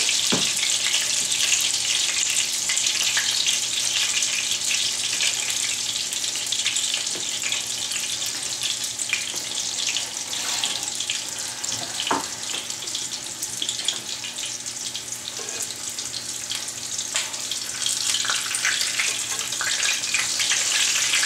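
Tortilla-wrapped sausage frying in hot peanut oil: a steady sizzle with a few sharp pops.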